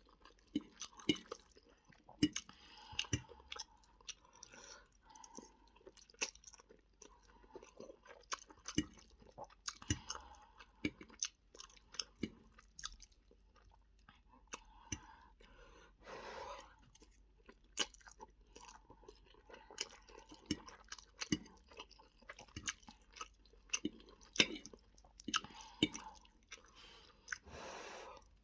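A person chewing a mouthful of spaghetti close to the microphone, with irregular wet mouth clicks and smacks.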